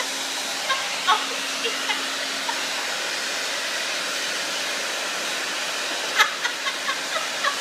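Hand-held hair dryer running: a steady rush of blown air. A woman laughs briefly about six seconds in.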